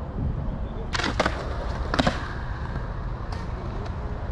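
Skateboard on concrete: sharp clacks and slaps of the board about a second in and again about two seconds in, over a steady low rumble.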